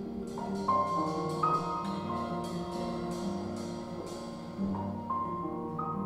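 Live improvised instrumental music: sharply attacked pitched notes over sustained lower tones.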